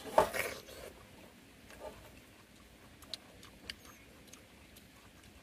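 Faint mouth sounds of watermelon being bitten and eaten: a few small wet clicks a little after three seconds in, over quiet outdoor background. A brief vocal sound comes first, right at the start.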